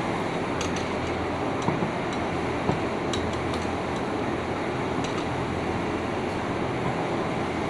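Steady workshop hum with scattered light metallic clicks of hand tools working on the bolts of a straight-knife cloth cutting machine's base.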